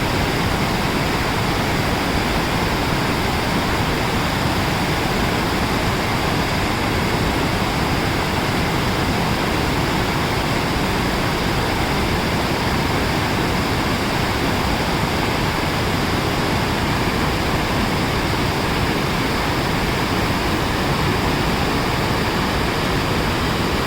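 Fast-flowing mountain stream rushing, a loud, steady noise of white water without a break.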